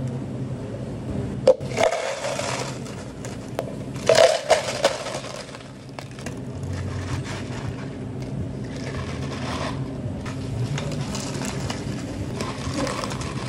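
Ice cubes scooped with a plastic ice scoop and tipped into tall plastic cups, clattering and scraping, with the loudest rattling bursts in the first five seconds. A steady low hum runs underneath.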